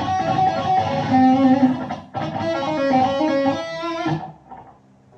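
Electric guitar played through an amplifier: a riff of picked notes and chords with a brief break midway, stopping about four seconds in.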